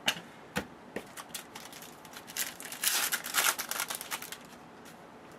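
Trading card packaging and cards being handled: a few sharp taps in the first second, then a crinkling rustle of a pack wrapper and cards for about two seconds in the middle.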